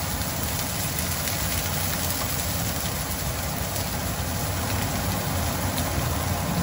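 Kitchen exhaust fan running steadily and kind of loud with a low drone, over chopped green onions sizzling in hot oil in a stainless steel frying pan.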